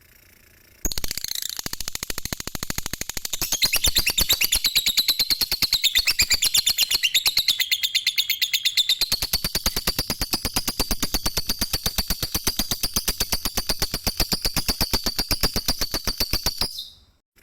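Lovebird chattering in one long, rapid, unbroken trill of clicky notes: the 'ngekek' song prized by keepers. It starts about a second in and stops shortly before the end.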